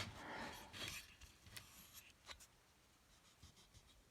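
Faint handling sounds in near silence: a sharp click, then light rubbing for about a second and a few small clicks, as fingers and small parts are worked.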